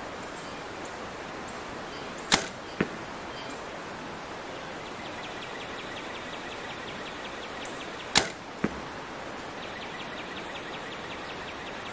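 Mathews Title 38 compound bow shot twice, about six seconds apart. Each shot is a sharp snap of the string at release, followed about half a second later by a fainter smack of the arrow striking the target downrange.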